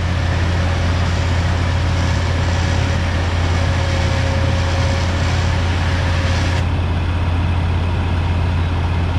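KFI Stealth 4500 electric winch on a Polaris RZR XP Turbo reeling in its line under load as it pulls a pickup truck, over a steady low engine hum. The higher, hissier part of the sound drops away about two-thirds of the way through.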